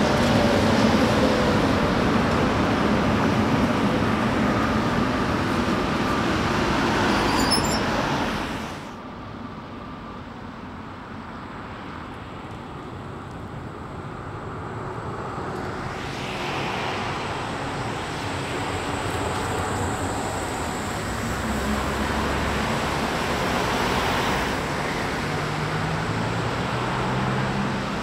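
Tatra T3 trams running past close on street tracks, a steady rumble of wheels and motors with a falling motor whine at the start. About eight seconds in the sound drops abruptly to quieter street noise, which builds again as a Škoda 15T tram approaches and passes near the end.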